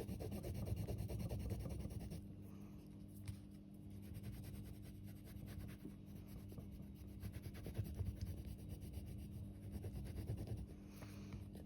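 Light green colour being scribbled onto a drawing sheet in quick repeated strokes: a steady scratchy rubbing of the colouring stick on paper. A faint steady hum runs underneath.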